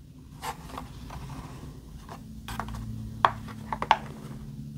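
A packaged diecast toy car being handled: its plastic blister and cardboard backing card rub and rustle, with a few sharp little clicks, over a faint steady low hum.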